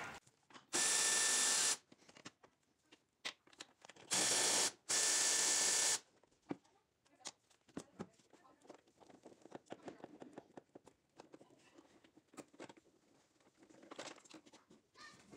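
Power ratchet spinning off the clutch master cylinder's two 12 mm mounting nuts in three short runs, the first and last about a second long, with faint clicks and handling noises of the loosened parts afterwards.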